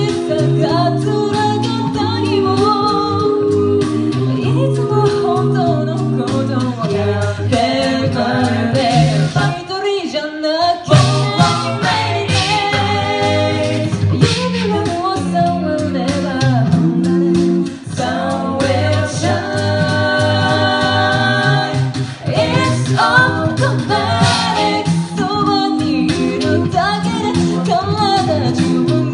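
A cappella group singing in several-part harmony over a sung bass line, with a brief break about ten seconds in.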